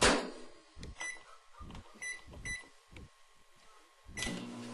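Microwave oven keypad beeping three times as it is set. A fourth beep comes near the end, and the oven starts running with a steady low electrical hum.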